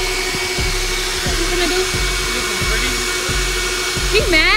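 Car wash vacuum station's motor running steadily, a loud rushing whine with a constant hum and a high steady tone.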